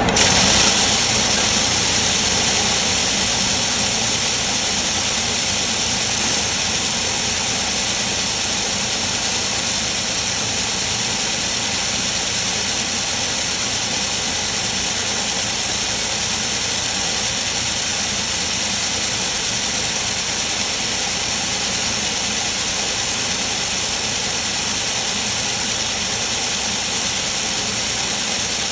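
Robot-arm laser welding cell running: a steady, even hiss with a faint high tone under it, unchanging throughout.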